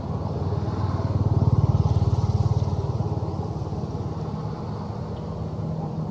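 A passing motor vehicle's engine, growing louder to a peak about two seconds in and then slowly fading away.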